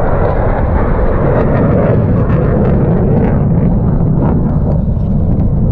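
Fighter jet flying low past, a loud jet engine rumble that swells over the first second or two and then slowly fades.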